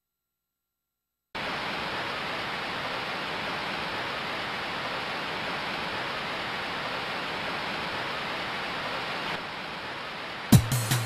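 Steady hiss of heavy rain, starting suddenly after about a second of silence. Music comes in just before the end.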